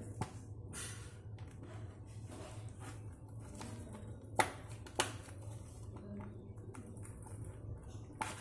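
Handling of a shrink-wrapped cardboard box and a pair of scissors: scattered light taps and clicks, with two sharp clicks about half a second apart near the middle. A steady low hum runs underneath.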